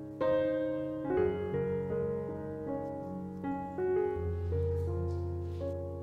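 Background piano music, a slow melody of held notes.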